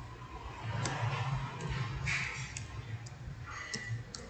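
Computer keyboard keystrokes: a few separate key clicks at irregular intervals, over a low steady background hum.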